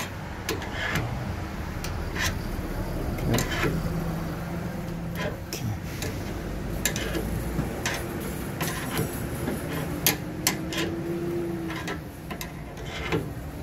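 Irregular metallic clicks and clanks of a scissor jack being worked with a hand tool, over a steady low workshop rumble.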